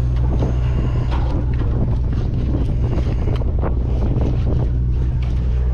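Sportfishing boat's engine running with a steady low drone, under a hiss of wind buffeting the microphone.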